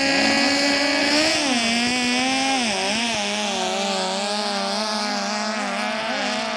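Racing speedboat engine running at high revs. Its pitch holds, drops about a second in, wavers up and down with the throttle around three seconds in, then settles at a slightly lower steady pitch.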